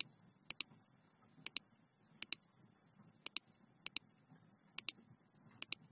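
Computer mouse clicking: about eight short, sharp clicks, most in quick pairs like a button press and release, coming irregularly less than a second apart. A faint low hum sits under them.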